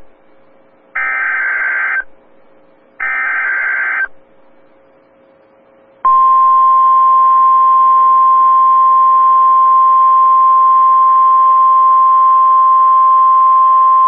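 NOAA Weather Radio emergency alert: the last two of the three buzzing SAME digital header bursts, each about a second long with a second's gap between them. After a short pause, about six seconds in, the steady single-pitch 1050 Hz warning alarm tone comes on and holds, the tone that sets off weather-radio receivers for a warning.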